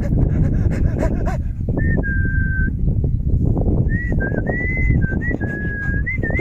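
Rottweiler whining in a series of thin, high, drawn-out notes, the first about two seconds in and a run of linked notes from about four seconds on. A steady low rumble of wind on the microphone runs underneath.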